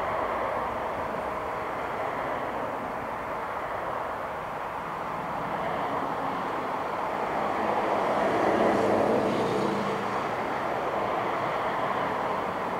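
Jet airliner engines: a steady rushing noise that swells to its loudest about eight seconds in, then eases off.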